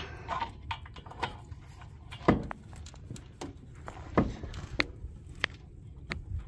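Metal transmission cooler line knocking and clicking against the radiator's quick-connect fitting as it is worked by hand, trying to push it in until it seats. Irregular sharp knocks with handling rustle, the loudest about two seconds in and another about four seconds in.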